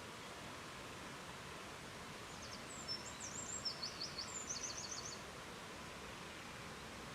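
Steady rushing of a river, an even hiss of water. About two and a half seconds in, a small bird sings a short song of rapid high notes and trills lasting about two and a half seconds.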